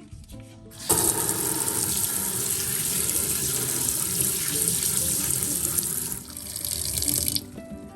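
Sink faucet running, the water stream splashing in the basin. It turns on about a second in and shuts off shortly before the end.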